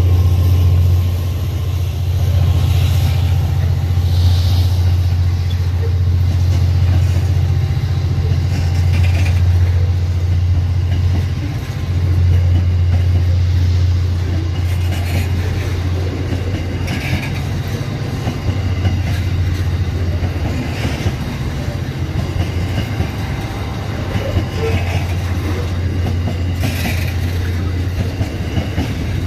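Train passing, a steady low rumble with the wheels clicking over rail joints every couple of seconds.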